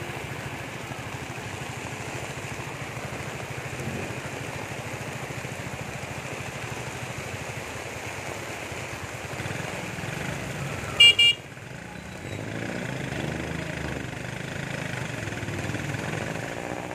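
Heavy rain hissing over a motorcycle engine running steadily. About two-thirds of the way through, a horn beeps twice in quick succession, short and shrill, the loudest sound.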